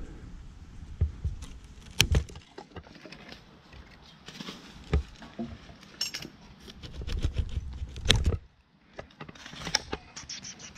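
Metal gear jangling and clinking, with irregular sharp knocks and a low rumble of handling noise as the arborist works against the pine's trunk.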